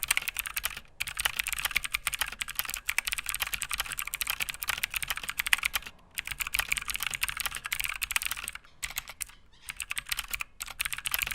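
Fast typing on a Motospeed CK104 mechanical keyboard with Outemu Blue clicky switches: a dense run of sharp clicky keystrokes, broken by a few brief pauses.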